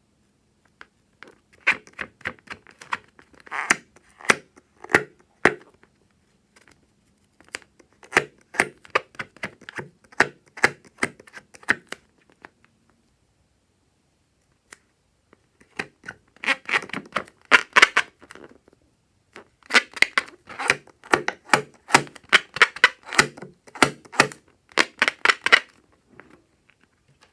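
Glossy slime being squeezed, pressed and stretched by hand, making rapid bursts of sticky, crackling clicks and pops with short pauses between.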